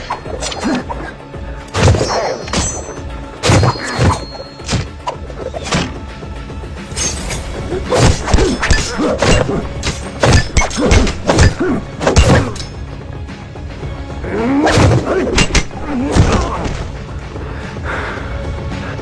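Staged martial-arts fight sound effects: a rapid series of punch and kick thuds and whacks, densest through the middle, over film score music.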